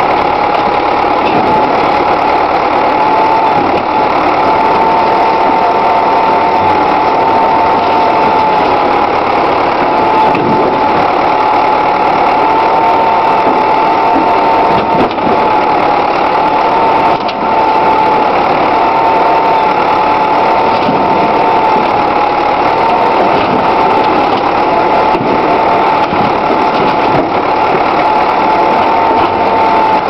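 Backhoe engine running steadily while the boom works the bucket, with a steady high whine that wavers slightly in pitch.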